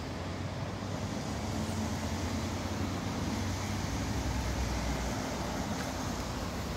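Steady low rumble of city road traffic and engines, with a faint hum under an even background hiss.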